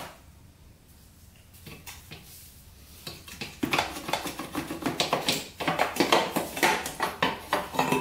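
The exhaust expansion chamber of a 1996 Suzuki RM125 two-stroke being worked back and forth and pulled off the cylinder's exhaust port. A quick run of metal knocks and scrapes starts about three and a half seconds in.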